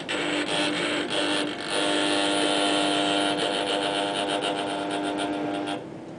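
Electric drive motors of a homemade pick-and-place robot arm running as the arm moves: a steady whine with rapid clicking, which cuts off suddenly near the end as the arm stops.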